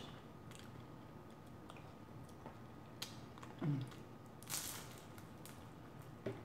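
A chicken and vegetable egg roll bitten into and chewed close to the microphone: a crunching bite a little past halfway, with soft mouth clicks around it.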